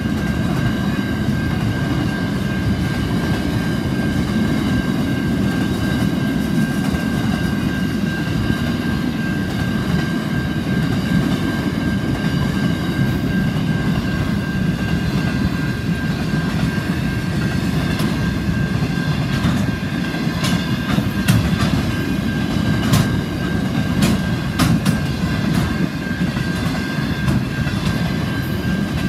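Freight train wagons rolling past with a steady heavy rumble and wheel clatter, and a steady high tone above it. In the second half come sharp clicks and bangs as the wheels pass over rail joints.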